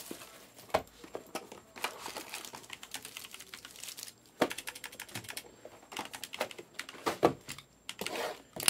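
Irregular clicks and taps with bits of plastic crinkling from hands handling shrink-wrapped trading-card boxes on a desk.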